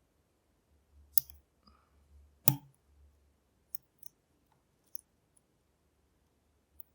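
Metal lock pick and tensioner clicking against the pins inside a shutter lock's half euro cylinder during picking. Two sharp, louder clicks come about a second and a half apart, then scattered lighter ticks.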